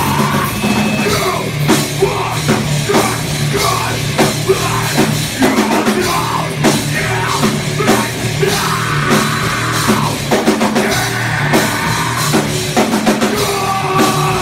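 A rock band playing live: a drum kit pounding out a steady beat under electric guitars.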